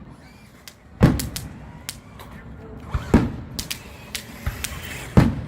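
Fireworks going off: a string of sharp bangs and booms, the loudest about a second in, just after three seconds and near the end, with smaller pops and crackles between.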